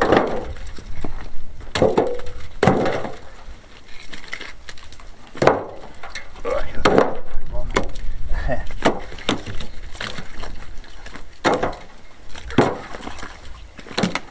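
Chopped firewood logs being picked up and tossed into a wheelbarrow: irregular sharp wooden knocks as logs land on each other and on the barrow's tub, a dozen or so spread through.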